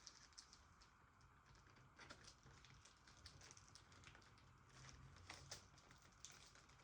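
Faint scattered clicks and scratches of fingernails picking at the shrink wrap on a sealed VHS tape case, feeling for a place to tear it open.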